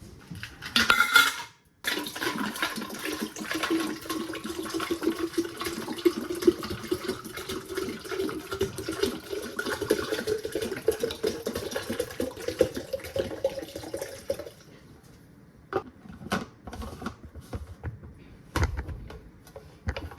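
Water running from a tap into a container for about twelve seconds, its pitch slowly rising as the container fills, then stopping; a few clinks and knocks of kitchenware follow.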